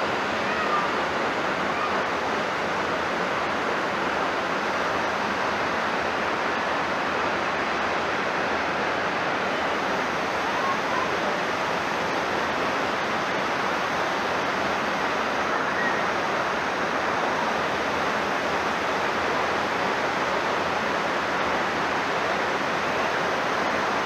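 Waterfall: the steady rush of falling water.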